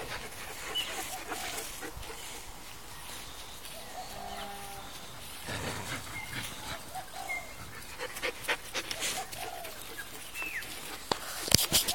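Faint, short animal calls now and then: one held call about four seconds in and a few brief ones after it. A few clicks come near the end.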